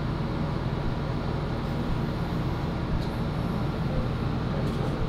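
Steady low background rumble, like room or ventilation noise, with a couple of faint clicks.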